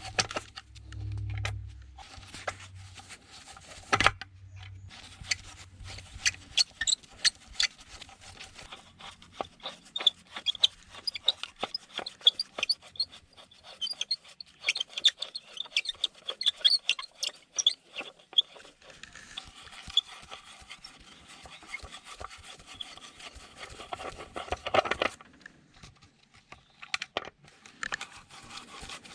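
Hand tools clicking and scraping against metal parts as a device is taken apart, in many quick strokes, with a louder rasping stretch about 25 seconds in.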